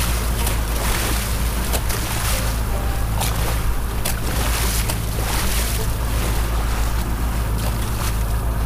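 Water rushing and splashing along the hull of a boat under way through choppy water, with wind buffeting the microphone and a steady low engine drone underneath.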